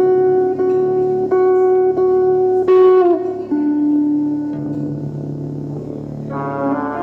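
Instrumental music on a plucked string instrument: one note is plucked about five times, its pitch bending down on the last pluck, then a lower note is held over a steady low drone. Near the end a fuller chord comes in.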